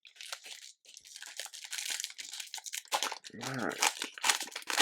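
Plastic foil trading-card pack wrapper crinkling and tearing: a continuous rustling crackle as the wrapper is handled and ripped open.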